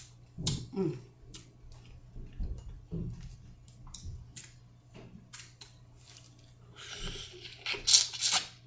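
Close-up eating sounds of a buttery seafood boil: wet chewing with many short smacking clicks, a short hum about a second in, and a louder noisy burst near the end.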